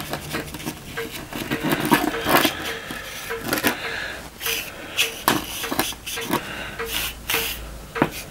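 A metal BB-gun lever handled over a wooden moulding board, giving irregular small clicks, knocks and scrapes as it is turned, tapped and dusted with parting powder. A soft, even tick sounds about twice a second behind it.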